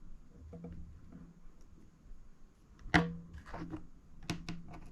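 Small sharp clicks and taps of a tool against the opened iPhone 5 as the missing home button's contacts are shorted, with one loudest click about three seconds in and several lighter ones after it.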